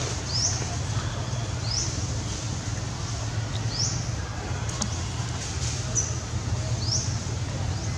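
Short high-pitched chirps that sweep upward, one every second or two, from an unseen small animal, over a steady low rumble.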